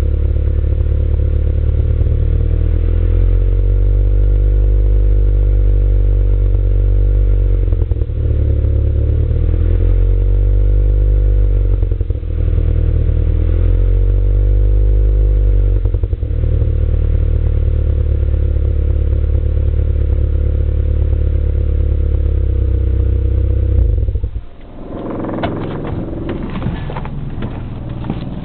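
An engine running with a misfire, its revs rising and falling three times before settling back to a steady run. It shuts off about 24 seconds in, followed by a few knocks and rattles.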